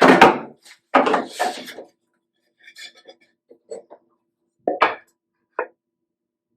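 Two strokes of a hand plane along a board's edge, the first about half a second long and the second about a second, with the blade's depth just backed off for a light finishing cut. Then a few faint taps and two sharp wooden knocks near the end.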